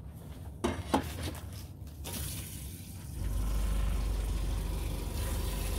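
A couple of clicks, then water running from the camp trailer's kitchen tap into a cooking pot, with a low steady hum joining about three seconds in.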